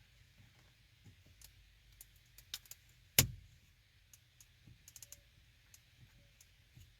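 Small clicks and ticks of an aluminum knob cover being handled as its double-sided tape backing is peeled and it is fitted over a car's A/C knob, with one sharp, louder click about three seconds in.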